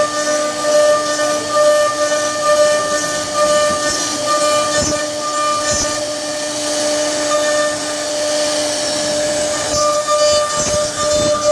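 CNC router spindle running at a steady high-pitched whine while its bit cuts into wood, over a rasping cutting noise that rises and falls as the bit moves. Near the end the cutting turns choppier.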